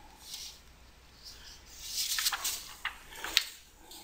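Faint rustling and handling noise, with a couple of sharp clicks in the second half, the loudest a little over three seconds in; the clicks are a computer mouse.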